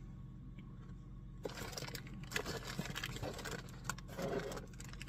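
Crinkling and rustling of plastic snack packaging, made up of many short crackles, starting about a second and a half in, over a steady low hum.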